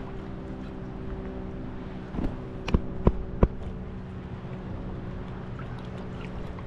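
Wind and choppy water with a steady low hum throughout, and three sharp clicks in quick succession about three seconds in.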